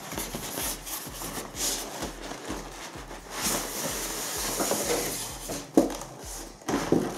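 Styrofoam packaging insert sliding out of a cardboard box sleeve, foam rubbing and scraping against the cardboard. There is a long scrape in the middle and two sharp knocks near the end.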